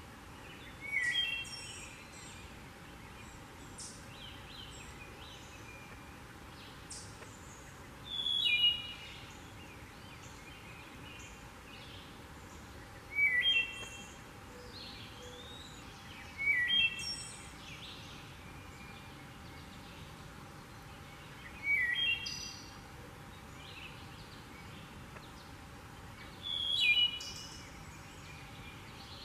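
Wood thrush singing: six separate song phrases spaced several seconds apart. Each phrase is a few clear stepped notes followed by a higher, quick trill.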